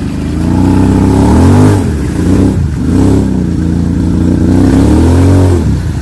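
ATV engine revving hard under load as it churns through deep mud. The pitch rises and falls several times, then is held high for over a second before dropping off near the end.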